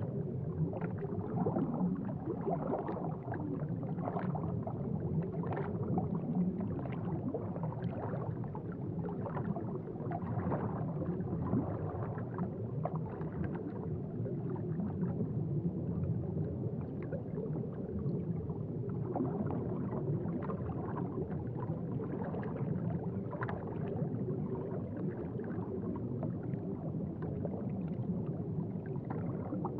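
Aquarium water bubbling and gurgling steadily, a low continuous burble dotted with many small bubble pops.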